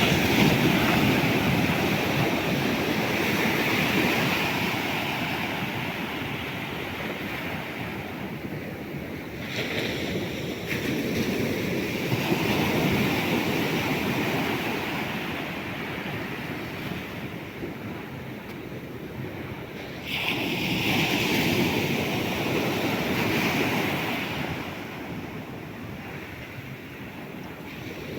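Sea waves breaking on the shore. Three waves break about ten seconds apart, each surging in suddenly and then washing out slowly.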